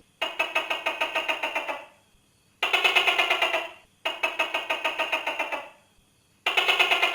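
Tokay gecko giving its rattling chatter: four runs of quick clicking pulses, about ten a second, each lasting a second or so with short pauses between.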